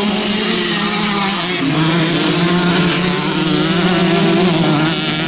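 Several small youth motocross bikes running hard together, engines revving with overlapping, wavering pitches. The main engine note drops in pitch about a second and a half in.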